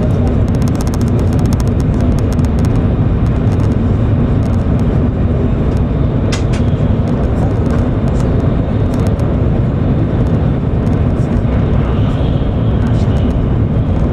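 Steady low rumble of an E7 series Shinkansen running at speed, heard from inside the passenger cabin, with scattered light clicks.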